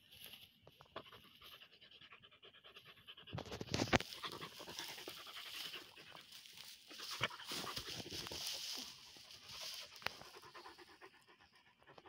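Pyrenean Mountain Dog panting close up while it rolls on its back in dry grass, the grass rustling and crackling under it. The sound swells through the middle with a few sharp crackles, the loudest about four seconds in.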